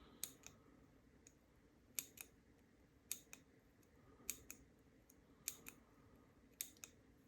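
Faint, irregular small clicks, often in pairs a fraction of a second apart, from a disassembled padlock's metal parts being handled.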